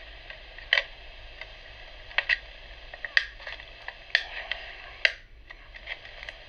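Hands handling plastic Blu-ray cases and a disc: a string of short, sharp plastic clicks and taps at uneven intervals.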